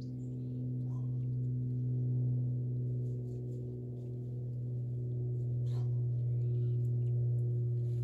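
Background music: a steady, low meditative drone with overtones, held unchanged throughout.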